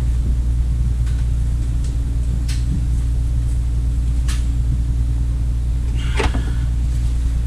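Steady low rumble and hum throughout, with a few light metallic clicks from an 11 mm spanner working a brake line pipe fitting.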